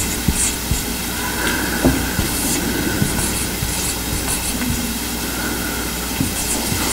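Dry-erase marker squeaking and scraping across a whiteboard in short strokes as words are written, over a steady background hiss.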